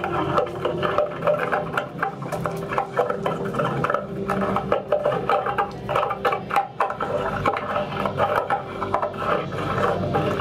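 Human hair strung like banjo strings, being rubbed and plucked as an instrument: dense, irregular scraping and plucking over a few held low tones.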